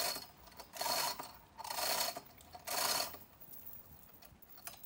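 Manual chain hoist (chain block) lifting a heavy boulder: four pulls on the hand chain, about a second apart, each a short burst of chain and mechanism noise, then a single click near the end.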